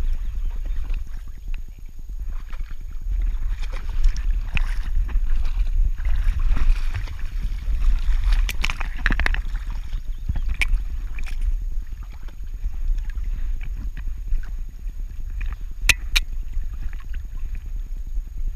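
Saarloos wolfdog wading through shallow boggy water, splashing and sloshing unevenly, heard from a camera strapped to her back, so a steady low rumble from the jostling mount runs underneath. Two sharp clicks come close together about three quarters of the way through.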